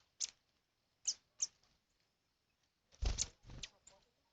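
Small wild birds giving short, high chirps: a few separate downward-sweeping notes, then a cluster of calls about three seconds in, which comes with a brief low thump.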